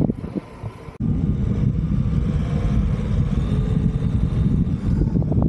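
A vehicle engine running steadily, coming in at a cut about a second in.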